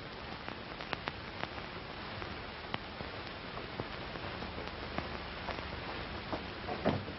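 Steady hiss from an old film soundtrack, with scattered clicks and pops through it and a few louder ones near the end.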